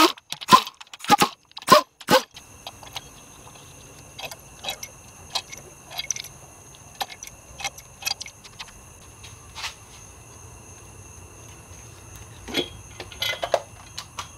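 An impact wrench working the cylinder head bolts loose on a Chrysler Pentastar 3.6L V6, in a row of short bursts about half a second apart over the first two seconds. Then come light metallic clinks and rattles as the long steel head bolts are handled, with a couple of louder clatters near the end.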